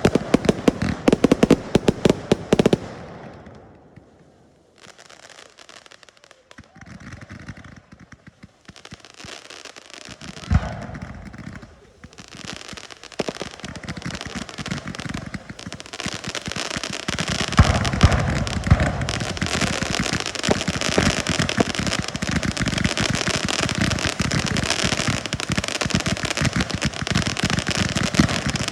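Fireworks display: a rapid barrage of bangs and crackles that dies away about three seconds in, then sparse crackling with one louder bang around ten seconds, and from about halfway a dense, continuous barrage of crackles and reports to the end.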